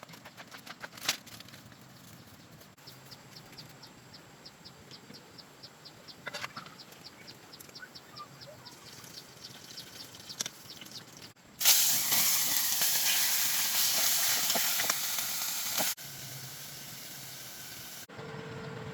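A loud hiss that starts suddenly about halfway through and drops to a quieter hiss some four seconds later, after a stretch of light clicks and a quick run of faint ticks.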